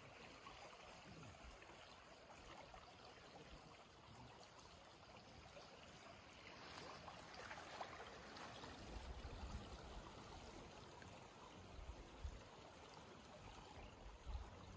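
Faint steady rush of a flowing, muddy river, with some low rumbling in the second half.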